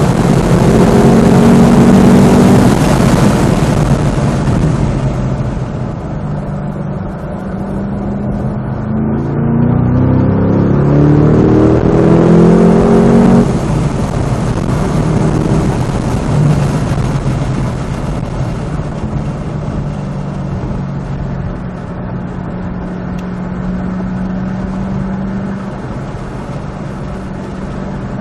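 Cadillac CT5-V Blackwing's supercharged 6.2-litre V8 being driven hard on a race track. It is loud at first, eases off, then climbs in pitch under acceleration about nine seconds in, cuts back sharply about halfway through, and runs at a steady lower note for the rest.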